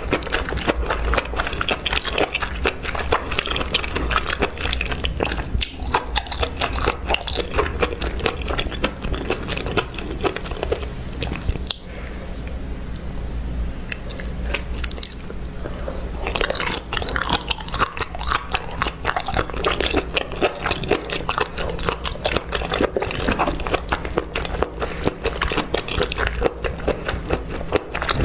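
Close-miked ASMR eating sounds: continuous wet chewing, smacking and biting of sauce-coated food, many quick clicks. The clicks thin out briefly about halfway through, then resume.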